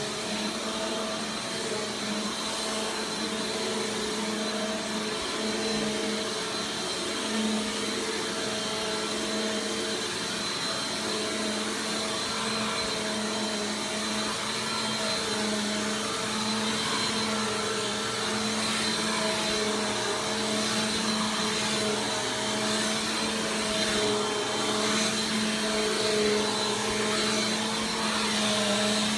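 Bissell PowerForce Compact Turbo upright vacuum cleaner running steadily: a continuous motor hum with a thin high whine over the rush of air.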